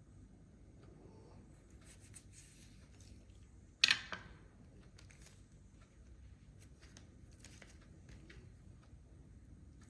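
Faint rustling and light clicks of handling, with one sharp clack about four seconds in that rings briefly.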